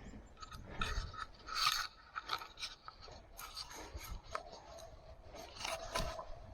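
Irregular rustling, scraping and crackling of close handling and movement, like brush, dry leaves or gear rubbing near the microphone. A faint held tone sounds in the second half.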